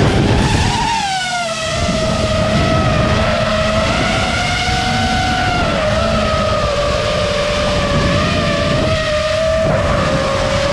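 FPV quadcopter's motors and propellers whining, heard through its onboard camera. The pitch rises briefly about a second in, then settles and wavers gently with the throttle, over a dense low rumble.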